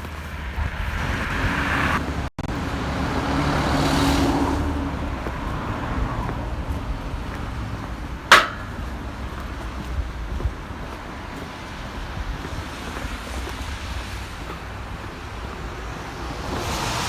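Road traffic noise: cars running past on a street, one swelling past about four seconds in, with a single sharp click about eight seconds in.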